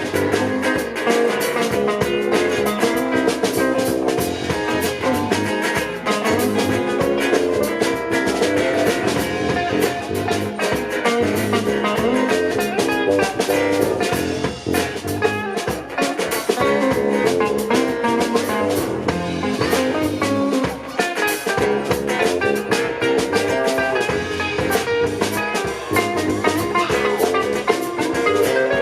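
A band playing an instrumental passage, with guitar over a drum kit and no vocals.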